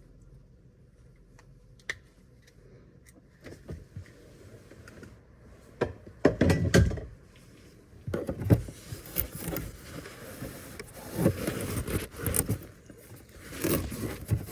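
Plastic interior trim panels of a Volkswagen Touareg's centre console being handled: scattered clicks, knocks and scraping. They are sparse at first and grow busier and louder from about six seconds in.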